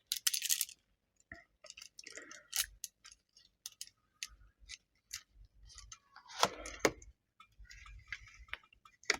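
Tarot cards being handled and shuffled: a scatter of light clicks and soft rustles, with a brief brush of noise just after the start and a louder cluster at about six and a half seconds.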